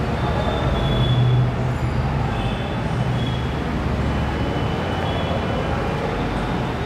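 Steady low hum and rumble of background noise, with a few faint, short high squeaks.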